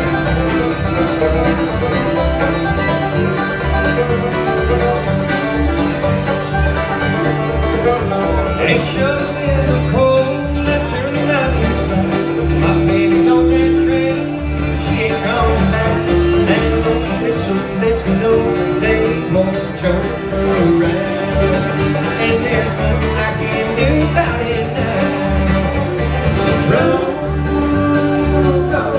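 Live bluegrass band playing a tune: fiddle, acoustic guitar, banjo, mandolin and upright bass, with the bass plucking a steady beat underneath.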